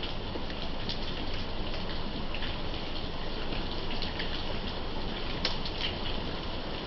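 Thunderstorm rain pouring steadily: an even hiss with scattered sharper drop hits.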